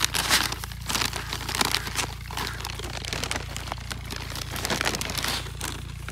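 A plastic seed packet filled with pearl millet seed crinkling and rustling irregularly as it is handled, over a steady low hum.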